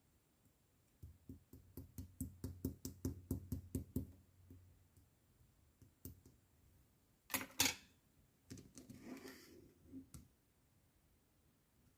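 Slime being played with by hand: a quick run of small clicking pops, about five a second, then a louder squelch and a stretch of softer squishing.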